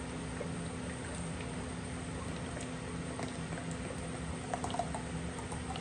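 Matte clear coat being poured into a plastic mixing cup, a steady liquid pour over a low steady hum, with a few small clicks near the end.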